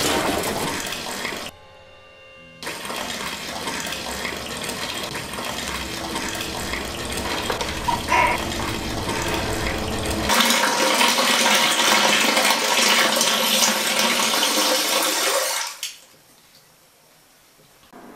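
A loud, even rushing noise with no clear pitch. It stops abruptly about a second and a half in and resumes a second later. About ten seconds in it turns thinner and brighter, then it cuts off near the end.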